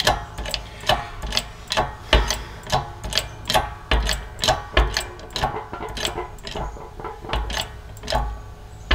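Shop press driving a bearing into an NSG370 transmission's aluminium rear case: a run of sharp clicks and clunks, one or two a second, some with a low thump, as the bearing goes in easily without binding.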